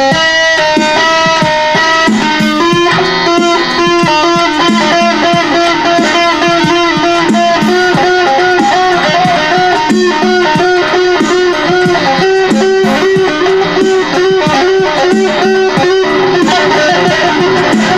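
Electric guitar played with two-handed tapping: fast runs of single notes over a repeating lower note.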